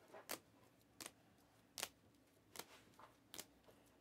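Plastic-sleeved trading cards being flipped through one at a time, a short sharp swish or slap of plastic on plastic about every three-quarters of a second, five in all.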